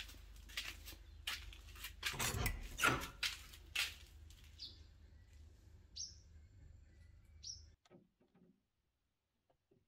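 Clicks and knocks of a wooden door being handled and pushed open, loudest about two to three seconds in, then three short high bird chirps about a second and a half apart.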